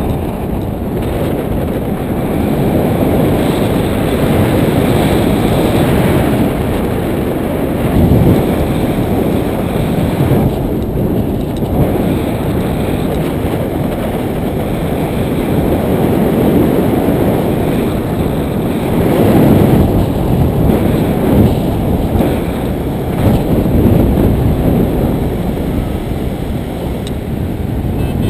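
Airflow buffeting a GoPro action camera's microphone on a paraglider in flight: a loud, unbroken low rumble that swells and eases with the gusts, several times growing stronger for a second or two.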